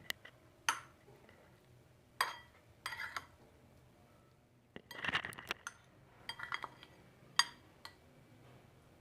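A spoon clinking against a plate or serving dish while rice is mixed with kulambu: about seven sharp, irregular clinks, each ringing briefly.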